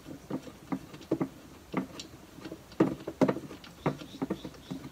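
Irregular light clicks and knocks of hand work on the A/C idler pulley bracket's already-loosened 12 mm bolts: metal parts tapping and clinking, with the loudest few about three seconds in.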